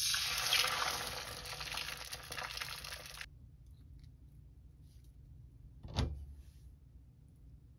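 An egg dropping into a hot frying pan and sizzling, the frying hiss fading away after about three seconds. About six seconds in comes a single sharp knock.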